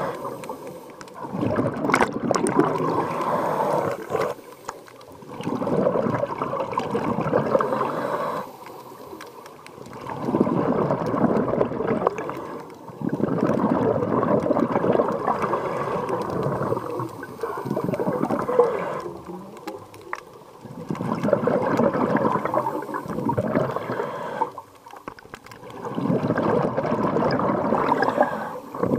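Scuba diver breathing through a regulator underwater: exhaled bubbles gurgle in bursts of two to three seconds, about every four seconds, with quieter gaps between them while the diver inhales.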